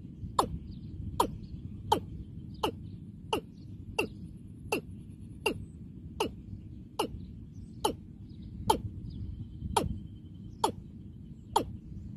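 Watercock calling: a steady series of short hollow notes, each dropping sharply in pitch, a little over one a second.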